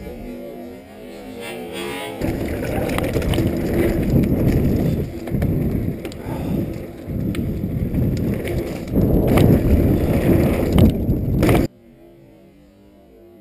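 Downhill ride on a Specialized Stumpjumper FSR full-suspension mountain bike: heavy wind noise on the helmet camera with tyres rolling over dirt trail and the chain and frame rattling over bumps. It builds over the first couple of seconds and cuts off abruptly near the end, leaving a faint hum.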